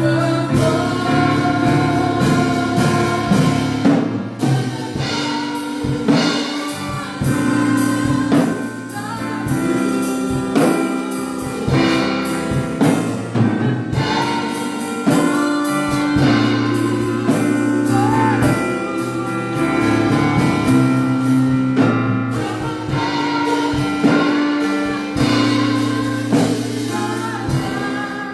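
Gospel worship music: a group of singers with instrumental backing, sustained bass and keyboard notes under the voices and a regular percussive beat.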